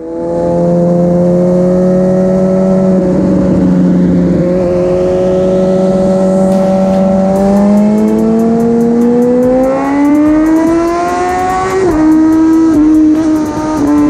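Suzuki GSX-R1000 K8's inline-four running through a decatted Cobra twin exhaust under way, the revs holding fairly steady, then climbing steadily from about eight seconds in before levelling off near the end. From about eight seconds in the bike is inside a road tunnel.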